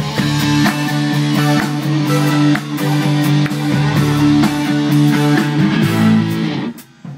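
A rock band playing live: electric guitar, bass and drum kit. The band breaks off briefly near the end.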